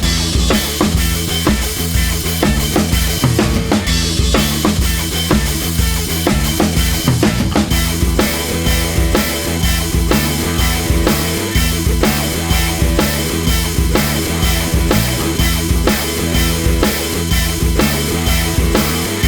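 Background rock music with a steady drum-kit beat, bass and guitar.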